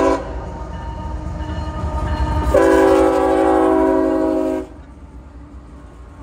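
CSX diesel freight locomotive's air horn sounding a chord: a short blast at the very start, then a long blast of about two seconds beginning about two and a half seconds in, over the low rumble of the lead locomotives passing close by. After the horn cuts off, the freight cars roll past with a steady lower rumble.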